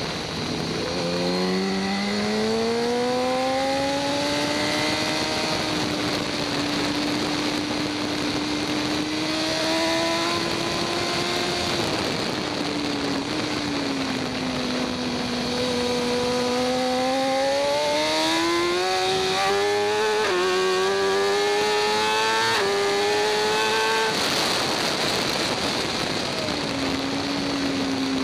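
2014 BMW S1000RR's inline-four engine heard from the bike at speed on a wet track. The revs rise, hold steady, ease back, then climb in several short steps before shutting off near the end, over a constant rush of wind.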